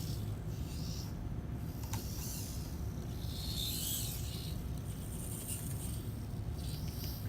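Robix robot arm working in short spurts of mechanical whirring and scraping, about five of them, each under a second long, over a steady low hum.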